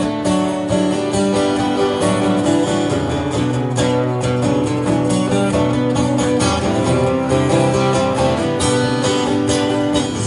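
Acoustic guitars strumming chords in a steady rhythm: an instrumental passage of a song between sung lines.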